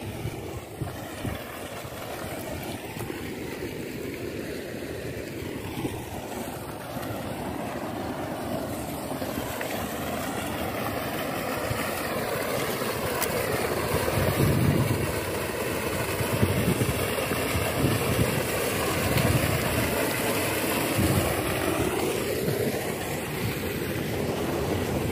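Sand-and-water slurry gushing from a dredge pump's discharge pipe into a flooded plot: a steady rushing, splashing noise that grows louder about halfway through and then eases slightly.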